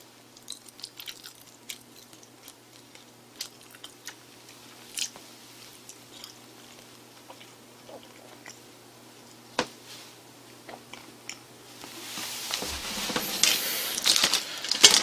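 Close-miked chewing and mouth sounds of a person eating, soft and sparse, with scattered small clicks. From about twelve seconds in a hissing noise rises, and a few knocks come near the end as the plastic tray is set down.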